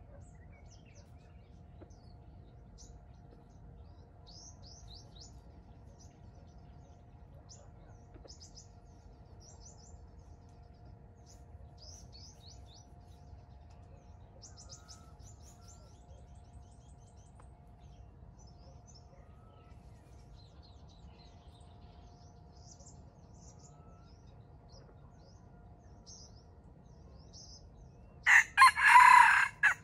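A wild junglefowl rooster crows once, loud and close, near the end, lasting about a second and a half. Before it, small birds chirp faintly in the background over a faint steady hum.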